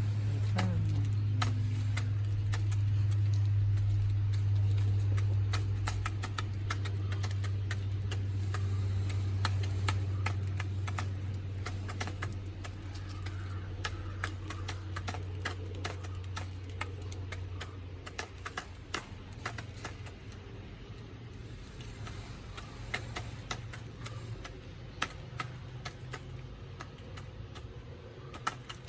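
Chickens pecking at feed: rapid, irregular sharp taps. A steady low hum runs under them and fades out about two-thirds of the way through.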